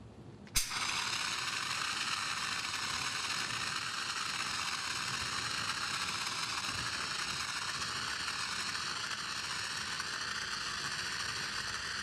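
Water fire extinguisher discharging: a sharp click as the handles are squeezed about half a second in, then the steady hiss of the pressurized water jet.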